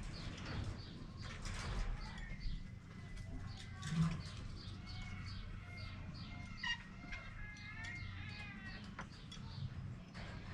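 A troop of squirrel monkeys chirping and peeping: many short, high calls in quick overlapping series, with a few longer held whistles, over a low steady hum. A single low thump about four seconds in.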